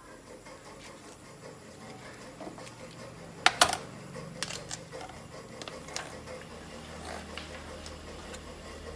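Chef's knife clacking sharply twice on a plastic cutting board about three and a half seconds in, among lighter clicks and taps from handling and cutting a whole raw chicken.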